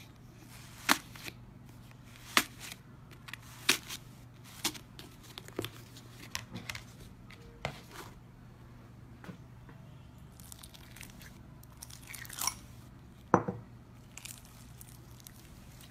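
Slime being pressed and squeezed by hand in plastic tubs: a series of sharp pops and clicks, roughly one a second, with softer crackling between them.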